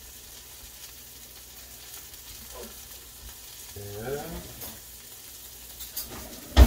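Cheese-and-ham pancake batter frying in a pan with a steady faint sizzle. A brief low hum about four seconds in, and a single sharp clack near the end.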